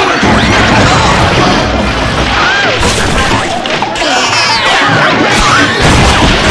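Cartoon fight sound effects: a dense, continuous jumble of crashes and bangs.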